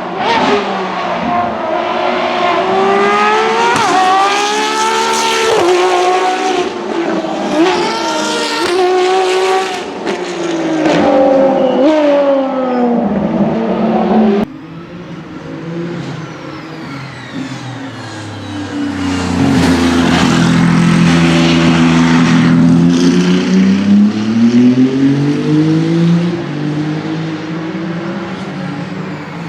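Ferrari race cars on track. First an engine revs hard through several gear changes, its pitch climbing and dropping with each shift. After an abrupt cut about halfway, a deeper-sounding car comes past loud, its pitch rising and then falling as it goes away.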